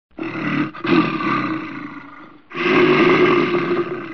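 An animal roar sound effect. A rough roar starts just after the beginning, breaks off for a moment and trails away, then a second, louder roar starts about two and a half seconds in.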